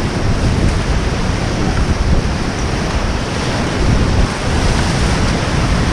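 White-water river rapids rushing loudly, a dense steady wash of water noise, with wind buffeting the microphone.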